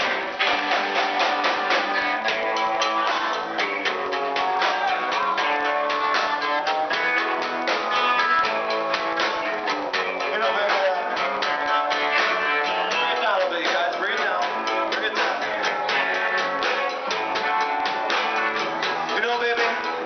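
Live band playing, with electric guitar and drums keeping a steady beat, loud and thin in the bass as picked up by a small camera's microphone.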